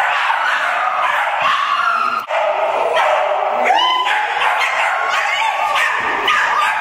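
Puppies yipping and barking excitedly in a near-continuous run of short, high calls.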